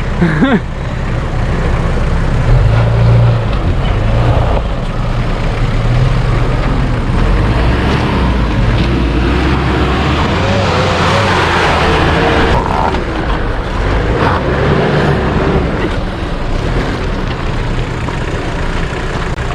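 Off-road 4x4's engine running at low speed, with the noise of the vehicle moving over rough ground.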